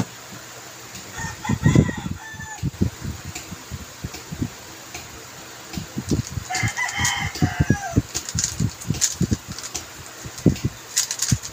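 Stickerless speed cube clicking and clacking as its layers are turned by hand. A rooster crows twice in the background, once about a second in and again about six and a half seconds in.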